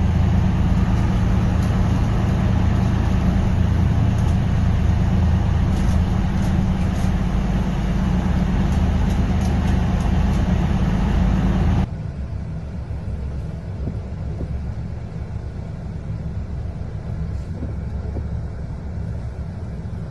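Steady low rumbling noise, dropping suddenly to a quieter, thinner noise about twelve seconds in.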